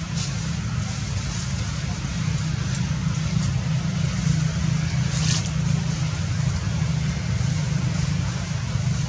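Steady low engine drone, with a few short high-pitched chirps, the clearest about five seconds in.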